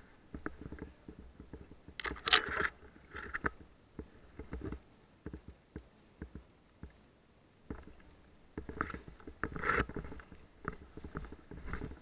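Irregular crunching and scraping of someone moving on foot through undergrowth, with a sharp snap about two seconds in and a busier run of crunches near the end.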